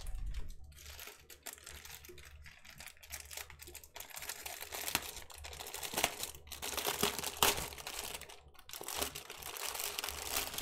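Clear plastic packaging crinkling as hands handle and turn a bag of small diamond painting drill bags, with a few brief pauses.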